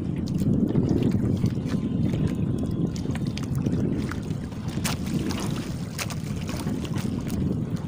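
Wind buffeting the microphone in a steady low rush, with a few sharp crinkles of a plastic bag being handled about five to six seconds in.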